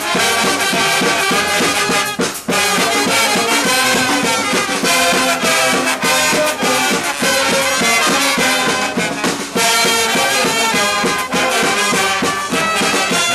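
Street brass band playing a lively tune, with trumpets and trombones over sousaphones, snare drum and bass drum.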